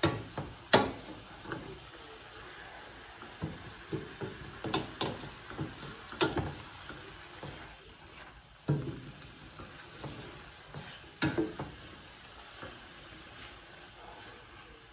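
Sliced mushrooms sautéing in a stainless steel pan: a soft steady sizzle as the water they have released cooks off, with a wooden spoon stirring and scraping through them and now and then knocking against the pan.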